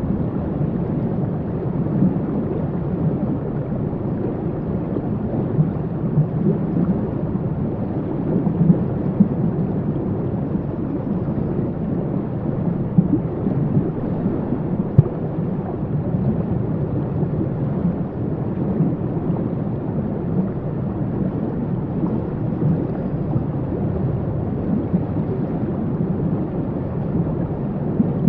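Waterfall: a steady, deep rush of falling water.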